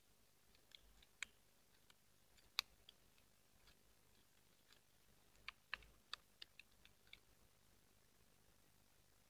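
Sparse clicks and crackles of stiff folded paper being pinched and shaped by hand into an origami boat. A quick run of clicks comes about five and a half to seven seconds in.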